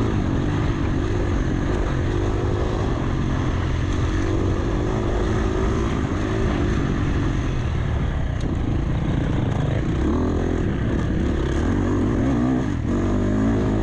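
Dirt bike engine running hard on a motocross track, heard from an onboard camera, its pitch rising and falling with the throttle, mixed with wind rush on the microphone.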